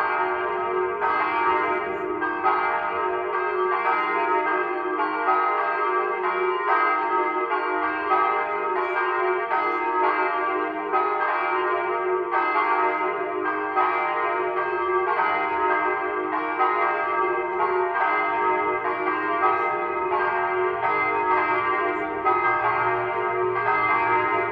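Church bells ringing continuously, with strokes coming roughly once a second and each ringing on into the next.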